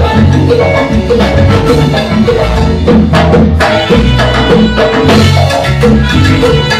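Instrumental salsa band music: a steady bass line under percussion and horns, with no singing.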